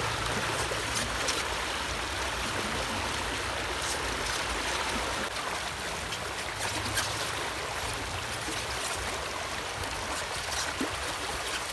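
Shallow river rushing steadily over rocks, with small splashes and a few faint clicks.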